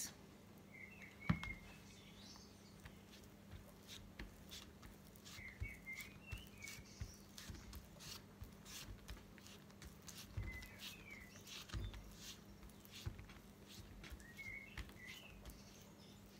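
Faint scattered soft taps and low bumps of fingertips pressing damp papier-mâché pulp onto a plate mould. A small bird chirps in short twittering phrases four times, every four to five seconds, over a faint steady low hum.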